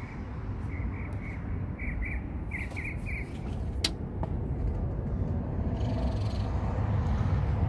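A bird calling in a quick series of short, high notes in little groups of two or three, over a steady low rumble. A single sharp click comes near the end of the calls.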